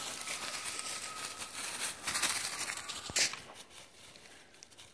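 Dry leaves and pine needles crunching and rustling underfoot as someone walks. It is louder for about the first three seconds, then drops to a faint crackle.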